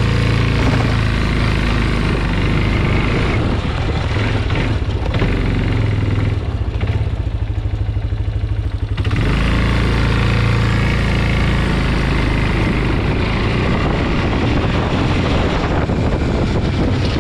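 Yamaha Big Bear 250 ATV's single-cylinder four-stroke engine running during a ride. About six seconds in it drops to a slow, pulsing low-rev chug for a couple of seconds, then picks up again.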